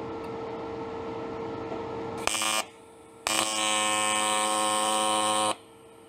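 TIG welding arc buzzing: a short burst about two seconds in, then after a brief gap a steady buzz of about two seconds that stops shortly before the end. A steady hum runs before the arc is struck.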